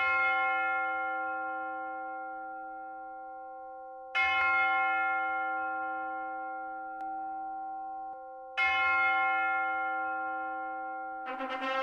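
A church bell tolling three times at the same pitch, about four seconds apart, each stroke ringing on and fading slowly. Brass music begins just before the end.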